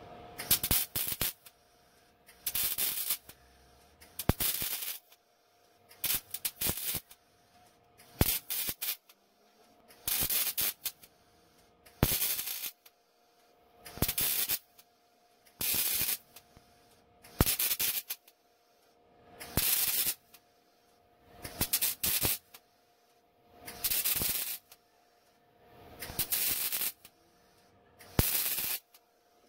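MIG welder stitch-welding a thin sheet metal patch into a car's trunk floor: about fifteen short crackling bursts of arc, each under a second long, roughly one every two seconds.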